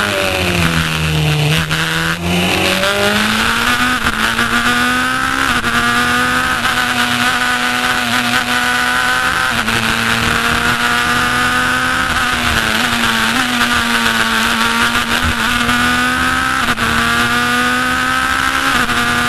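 Onboard sound of an open-cockpit sports racing car's engine at racing pace. The revs fall in the first second or two as the car slows, then climb through the gears with a quick dip at each upshift, with another slow fall and rise partway through, over a steady rush of wind in the open cockpit.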